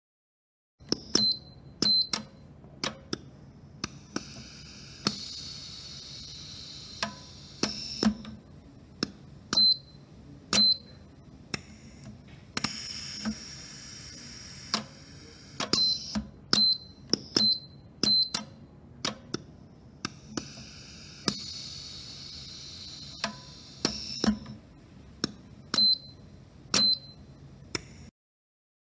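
Workpiece-clamping machine cycling: a run of sharp mechanical clacks from its clamps and actuators, some with a brief high ring. Three bursts of air hiss, each about three seconds long, come at roughly eight-second intervals.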